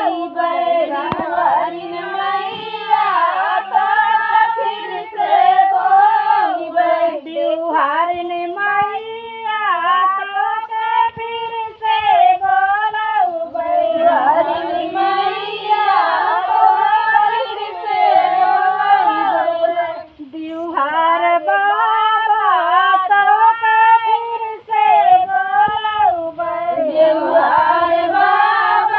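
Women's voices singing a song together as a group, following one melody line, with a short break about twenty seconds in.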